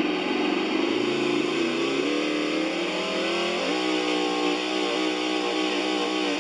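ESS-one RC engine sound module playing a simulated V8 engine through its speaker at its lowest volume setting. The engine note climbs in pitch as the throttle is opened, steps up near the middle, then holds at a steady high rev.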